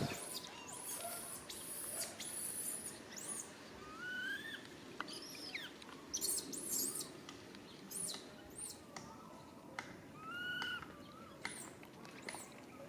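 Baby monkey calling: a string of short, high-pitched squeaks and chirps, some rising then falling in pitch, with brief gaps between them.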